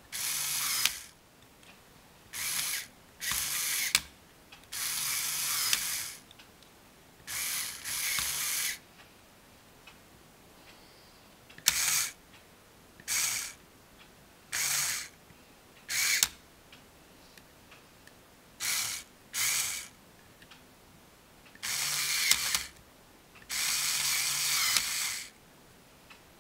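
LEGO Power Functions M-Motor whirring through its plastic gear train in about fourteen short runs, each half a second to a second and a half, stopping abruptly, with a sharp click at the end of a few runs. It is throwing a LEGO train track switch back and forth.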